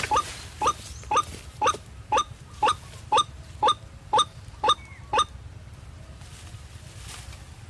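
White-breasted waterhen calling: short, upward-sweeping 'kruak' notes repeated about twice a second, stopping abruptly about five seconds in.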